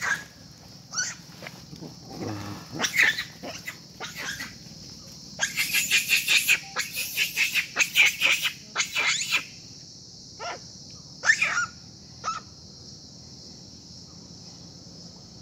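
Long-tailed macaques giving short squeals and chirping calls, with a fast run of calls in the middle and a few single calls near the end. A steady high-pitched hiss runs underneath.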